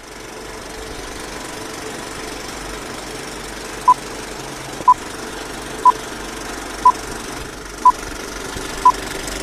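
Film countdown leader sound effect: a film projector running with a steady rattle, and a short beep on each count, six of them one second apart starting about four seconds in.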